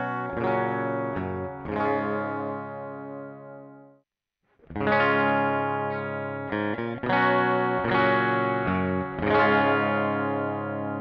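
Electric guitar with a P90 pickup strumming chords, recorded direct: first the dry D.I. signal, then, after a brief silence about four seconds in, the same kind of chords with the amp-simulator pedal switched on.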